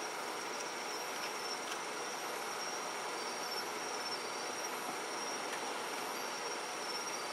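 Insects trilling steadily on a summer night: a continuous high tone with shorter repeated trills just below it, over an even hiss. No firework bursts stand out.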